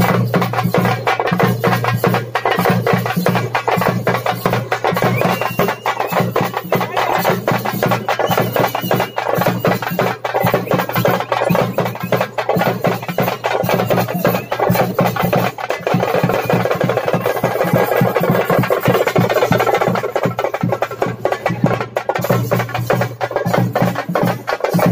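Loud drum-led festival dance music: fast, dense drumming over a steady drone, without pause.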